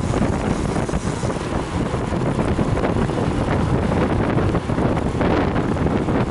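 Wind buffeting the microphone of a camera carried on a road bike riding at speed in a pack, a steady rough rumble with rapid flutter.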